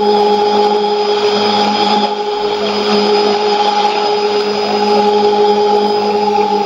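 Shortwave radio reception on 5990 kHz through a Sony ICF-2001D receiver: a test transmission of several steady tones sounding together over static and hiss, with a brief dip about two seconds in.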